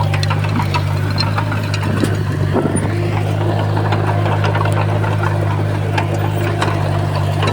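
Komatsu D20P bulldozer's diesel engine running steadily, with scattered short clicks and knocks over it.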